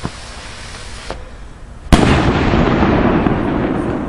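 A firework bursting: one sharp, very loud bang about two seconds in, followed by a long noisy tail that slowly fades.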